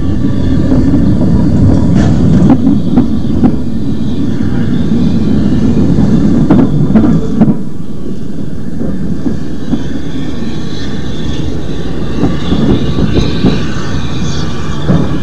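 Small steam locomotive working under a bridge, with chuffing exhaust and wheel and rail clatter. It is loudest in the first half and eases off after about seven and a half seconds as it moves away.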